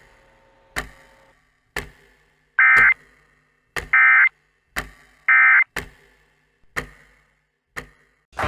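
Emergency Alert System end-of-message signal: three short buzzing data bursts, each under half a second and a bit over a second apart, marking the end of the alert. A sharp tick about once a second runs underneath.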